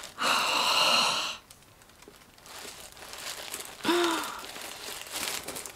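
A woman's long, breathy sigh, choked up with emotion, then faint rustling of tissue paper and a short whimper about four seconds in.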